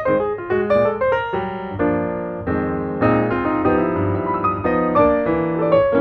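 Background piano music: quick runs of notes and held chords.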